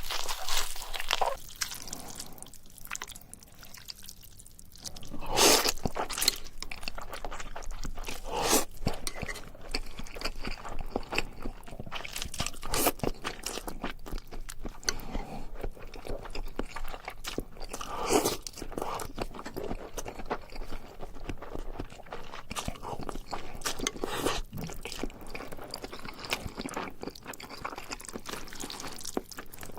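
Close-miked eating: crunchy food being bitten and chewed, with irregular crisp crunches throughout and a quieter lull about three seconds in.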